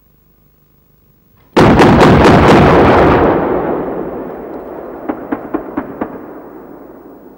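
CV-90's 40 mm Bofors cannon firing a rapid five-round burst about a second and a half in: loud shots running together into a blast that rolls away slowly. About three seconds later come five sharp, fainter cracks in quick succession, the 3P rounds bursting at the distant helicopter target on their proximity fuses.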